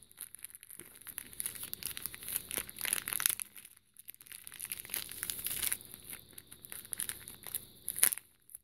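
Small clear plastic zip-top bags of nail-art glitter crinkling as they are squeezed and turned over in the hand, in irregular bursts, with a short lull about halfway through and a sharp crackle near the end.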